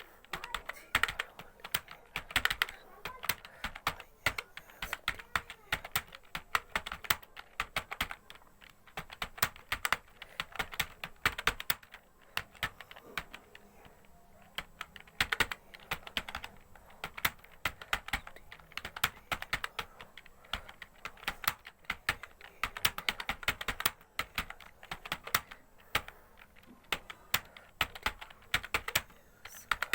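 Continuous touch-typing on a computer keyboard during a speed test: a rapid, uneven stream of key clicks, several a second.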